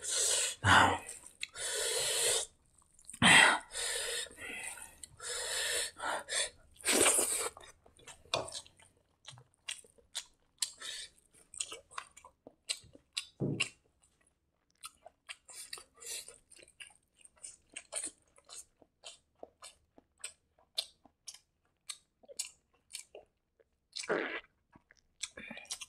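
Close-miked eating by hand: for the first several seconds fingers squish and mix rice and egg curry on a metal plate in rustling bursts. Then a mouthful of rice and boiled egg is chewed wetly, with many small smacking clicks.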